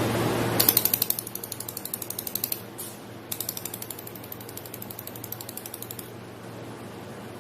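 Pulsed laser welder firing a rapid, even train of sharp clicks in two runs, with a short gap between them, over a steady low machine hum.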